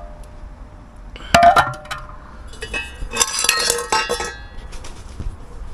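A removed motorcycle catalytic converter, a heavy metal exhaust box, clanking on concrete paving: one sharp clank about a second in, then a cluster of clinks that ring on briefly.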